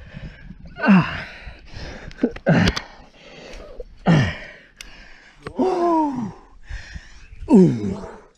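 A climber's hard breathing under strain: loud gasps and grunts of effort every second or two, each falling in pitch. A few short, sharp clicks are heard between them.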